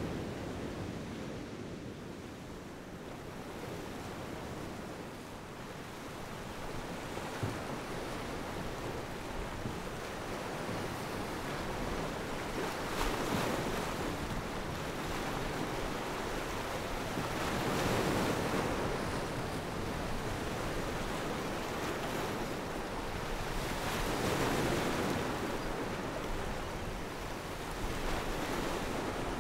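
Surf breaking on a sandy beach: a steady wash of waves that swells each time a wave comes in, about every five or six seconds.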